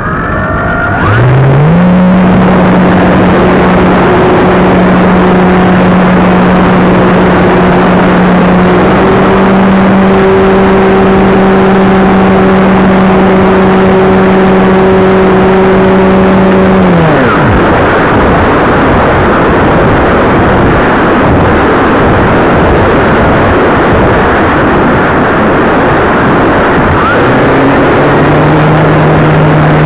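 Electric motor and propeller of a depron foam Piper J3 model plane, heard close up with heavy rushing air. The motor spins up about a second in to a loud, steady whine, cuts off about 17 seconds in for a glide with only the air rush, and comes back on at a lower pitch near the end.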